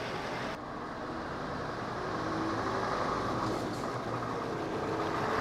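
Scania S520's 520 hp V8 diesel engine running at low revs as the truck moves slowly, getting gradually louder as it comes closer.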